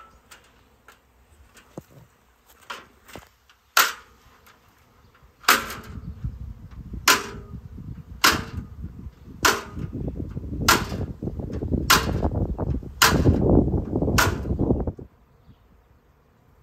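A folding metal stepladder banged together again and again, about nine sharp clangs roughly a second apart, starting about four seconds in and stopping near the end. A low rumble runs underneath. This is tanging, the old beekeepers' trick of making noise to get a departing honeybee swarm to settle.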